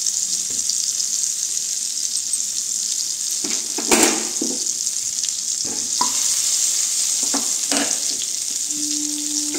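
Butter and a little ghee sizzling as they melt and foam in a hot non-stick kadhai: a steady frying hiss with a few short pops, the loudest about four seconds in.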